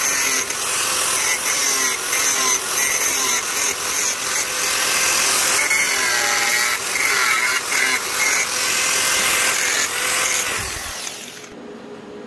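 Angle grinder with an orange abrasive disc grinding an aluminium bracket at its joint, its pitch dipping and recovering as the disc bites; it winds down and stops near the end.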